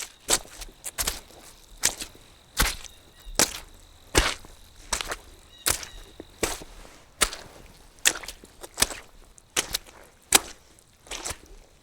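Foley footsteps on soggy, wet ground: a steady walking rhythm of squelching steps, about one to two a second, some landing in quick pairs.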